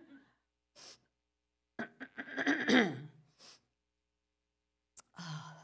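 Mostly quiet pauses with a few breaths, broken about two seconds in by a short burst of a woman's voice, and a brief voiced sound again near the end.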